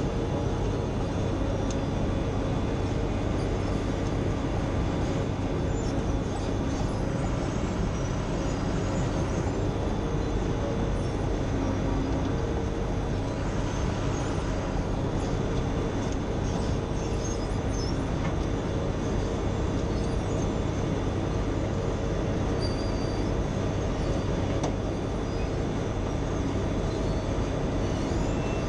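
Wirtgen asphalt milling machine running steadily under load: the diesel engine and the cutting drum grinding off an asphalt curb, in a constant, even din.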